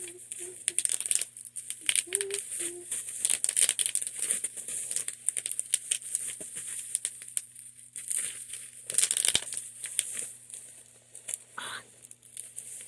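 Packaging being handled: irregular crinkling and rustling with sharp little clicks throughout, with a faint hummed tune in the first few seconds.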